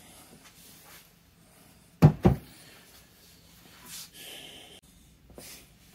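Workshop handling noise: two sharp knocks in quick succession about two seconds in, then faint rustling and scraping as things are moved on the bench.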